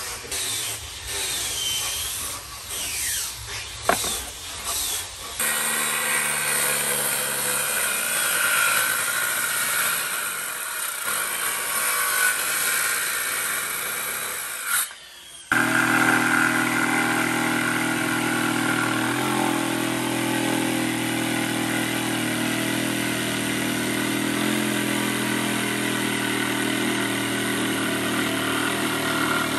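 A few knocks and scrapes of handling the board, then a handheld circular saw running steadily as it rips along a wooden plank. It cuts off suddenly about halfway through, and an electric jigsaw takes over, running steadily as it cuts through the board.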